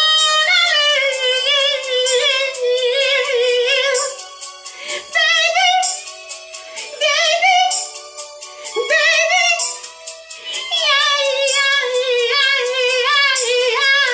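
A song: a woman singing long, wavering notes with strong vibrato over music with a steady beat.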